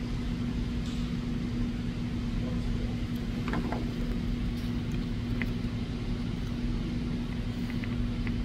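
Steady machine hum with one constant low tone. A few faint small clicks come from a small screwdriver and thermostat wires being worked into a thermostat backing plate's screw terminals, the plainest about halfway through and near the end.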